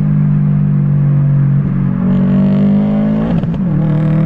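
Car engine heard from inside the cabin, pulling under acceleration with its pitch rising slowly. About three and a half seconds in there is a gear change: the pitch drops sharply, then the engine carries on at a lower pitch.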